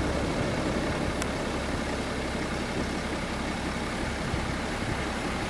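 Steady outdoor rumble with a hiss of rain on a wet road, with no distinct events.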